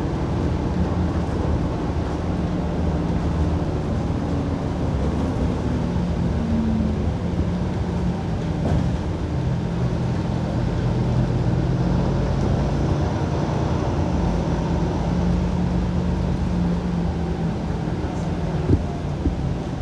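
City bus running along its route, heard from inside the cabin: a steady engine drone whose pitch shifts as the bus speeds up and slows, with one sharp knock near the end.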